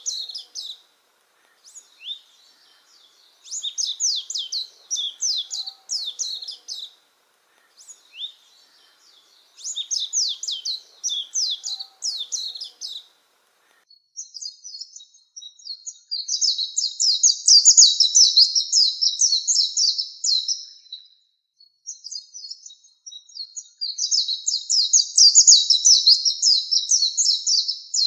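Oriental white-eye singing: bursts of fast, high twittering song a few seconds long, separated by short pauses. From about halfway through, the phrases become longer and denser.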